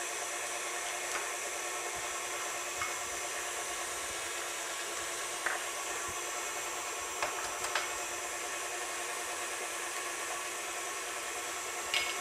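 KitchenAid Artisan stand mixer running steadily, beating batter in a glass bowl, with a few light clicks scattered through.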